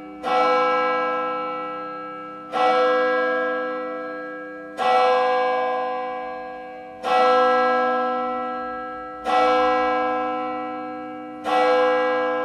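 A single church bell tolling, struck six times at about one stroke every two and a quarter seconds, each stroke ringing on and fading before the next.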